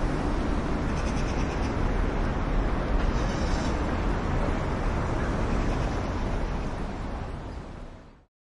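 Steady ambient rumble with a hiss on top, heaviest low down and without any tune or voice; it fades out over about the last second and drops to silence.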